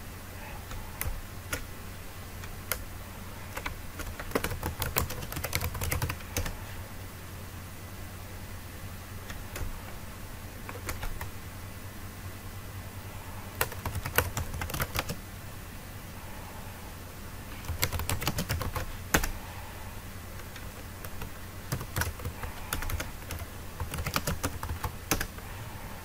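Typing on a computer keyboard in several short bursts of rapid key clicks with pauses between, over a faint steady low hum.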